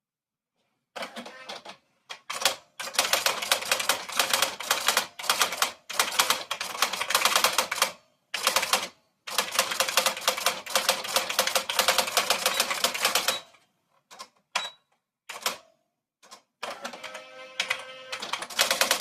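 Typewriter typing: fast runs of keystrokes broken by short pauses, then a few single strokes, and near the end a different rattling stretch of about two seconds.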